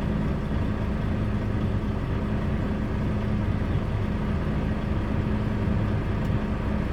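D13 inline-six diesel engine idling steadily just after its first start following an engine rebuild for a knock, with fresh oil in and oil pressure up.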